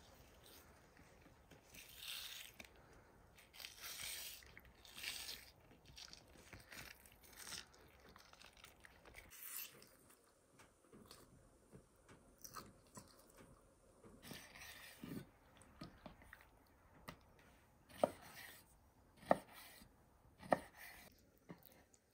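Wet rustling and tearing as the thin membrane is peeled by hand off a raw lamb's liver, then a knife slicing the liver on a wooden cutting board, with three sharp knocks of the blade on the board near the end.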